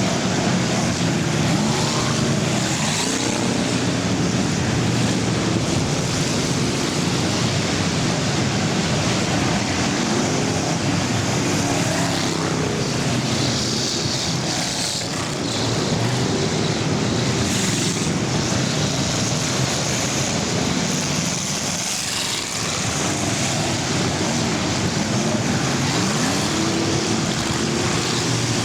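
A pack of full-size cars racing in an enduro, many engines running hard together, with engine pitches rising and falling as cars pass.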